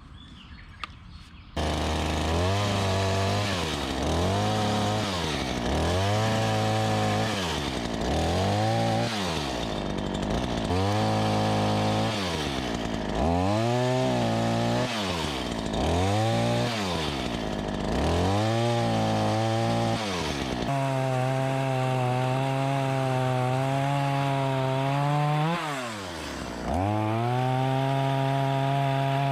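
Black Max 16-inch chainsaw's 38cc two-stroke engine, coming in suddenly about a second and a half in. It is revved up and dropped back toward idle over and over, about once every two seconds. It is then held at high speed for several seconds, drops back briefly, and climbs to high speed again.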